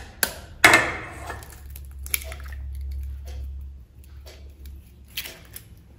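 A raw egg cracked with a couple of sharp knocks against a steel spoon, then its shell pulled apart by hand so the egg drops into the bowl, with a soft squish and a few faint clicks. A low hum runs for a couple of seconds in the middle.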